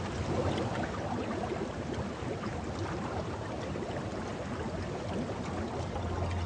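Hot springs in a salt crust bubbling and gurgling, an even watery crackle with no single loud event.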